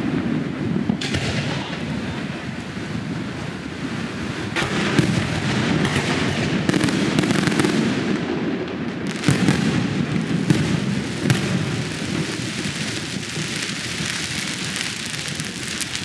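Aerial fireworks bursting one after another, a dense run of booms and crackling, with the sharpest bangs around the middle.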